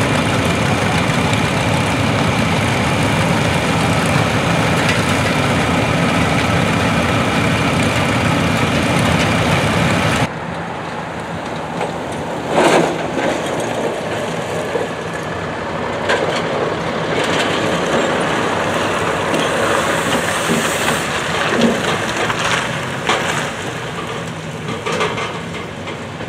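Several vintage farm tractor engines idling together, a loud, steady running. About ten seconds in it cuts abruptly to quieter roadside traffic: engines of tractors and trucks going by, with a few sharp knocks.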